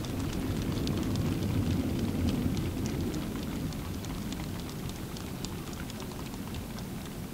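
Low rolling rumble of fireworks bursts echoing and slowly fading at the end of a wide starmine barrage, with scattered sharp ticks and crackles over it.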